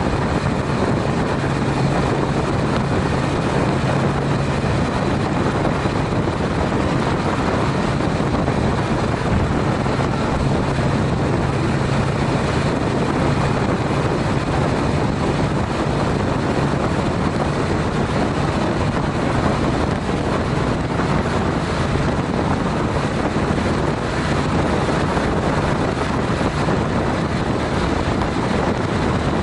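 Steady wind rush over the microphone of a Honda CTX700N motorcycle cruising at highway speed, with the low, steady drone of its parallel-twin engine underneath, fainter in the last third.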